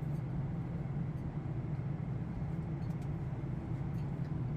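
Steady low drone of an airliner cabin in flight, the engine and airflow noise of a Boeing 747-8i, even and unchanging.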